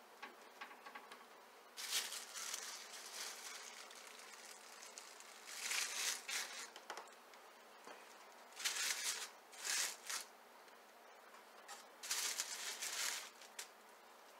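Plastic meat wrapping crinkling and rustling in several short bursts as ground venison is pulled from it and handled.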